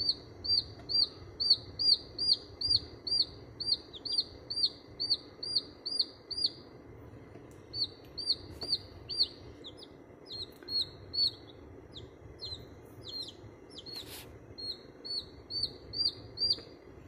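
A chicken chick peeping: a long run of short, high chirps, about three a second, broken by a couple of brief pauses.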